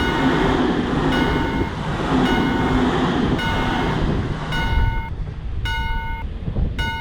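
Japanese level-crossing warning bell ringing about once a second while a train passes, its rumble fading about four to five seconds in and leaving the bell ringing on.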